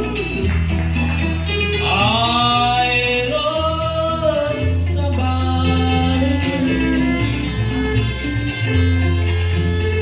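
Live keroncong band music: a singer's voice over plucked string instruments and a steady bass line.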